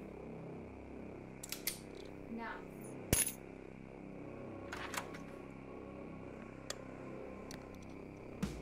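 A key ring with a car key fob set down on a hard countertop: a sharp metallic clink about three seconds in, the loudest sound, with several lighter clicks and taps before and after it.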